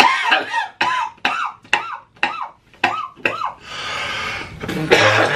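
A man laughing loudly in a run of short, high-pitched 'ha' bursts, then a long noisy in-breath and another loud outburst near the end.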